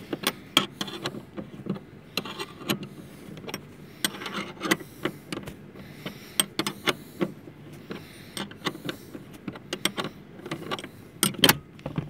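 A wrench clicking and knocking against the steel seat-rail mounting bolt of a car's front seat as the bolt is worked loose. The sharp metallic clicks come irregularly, a few a second, with a louder cluster near the end.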